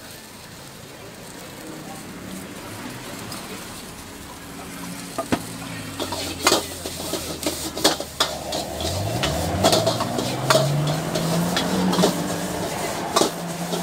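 Metal ladle scraping and clanking against a wok while noodles sizzle as they are stir-fried, the sharp strikes coming thick and fast from about five seconds in. A low hum rises in pitch through the second half.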